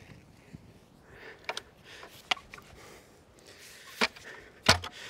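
Manual clamshell post hole digger jabbed into the bottom of a dirt hole to widen it. A few light clicks and scrapes come first, then two heavy thuds about a second before the end as the blades strike the soil.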